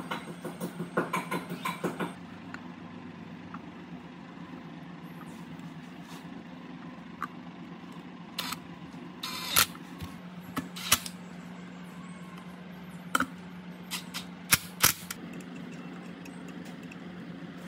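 Hands working on an electric motor's terminal box: a quick run of small clicks for the first couple of seconds while the wires are fitted, then scattered sharper clicks and knocks of a screwdriver and screws as the box cover is fastened. A steady low hum runs underneath.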